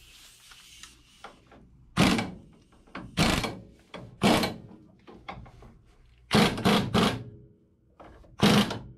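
Air impact wrench run in short bursts, about seven of them, driving a nut onto a drop spindle's spinning stud.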